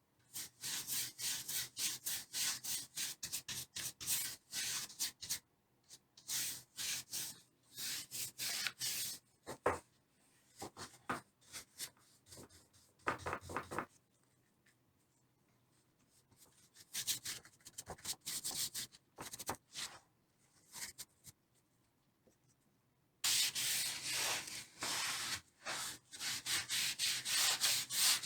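Hand rubbing on a painted wooden tray in quick back-and-forth strokes, about three a second. The strokes come in runs of a few seconds with pauses between them, and a longer, louder run starts near the end.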